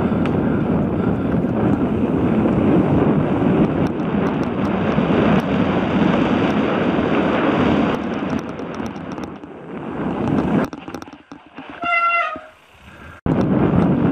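Wind buffeting a helmet-mounted action camera's microphone, mixed with tyre rumble from a mountain bike riding fast down a dirt singletrack. Near the end the noise falls away for a couple of seconds, with a brief high squeal. It then comes back loud all at once.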